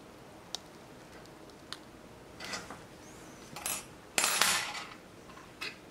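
Small metal clicks and clinks from steel watchmaker's hand levers and tools working at a wristwatch dial, with rustling of the thin plastic sheet laid over the dial. The loudest clatter comes about four seconds in and lasts about half a second.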